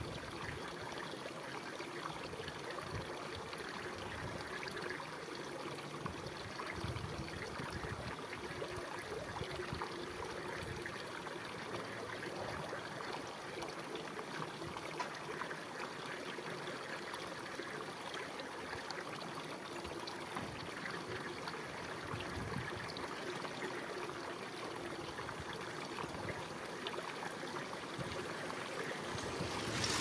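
Shallow river water flowing and rippling steadily.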